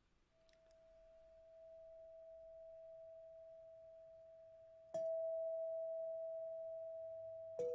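Bell-like chime tones ringing out: one pure tone swells in softly, then about five seconds in a sharp strike sounds it louder at the same pitch, and near the end a second strike adds a lower tone.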